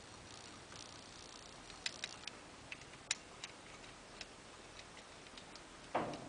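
Pick hook and tension wrench working the pins of a 5-pin pin-tumbler doorknob lock: faint, irregular small clicks. Near the end comes a single louder knock.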